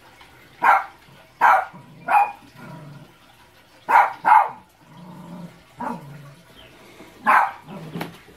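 A dog barking: about eight short single barks, spaced unevenly, two in quick succession about halfway through.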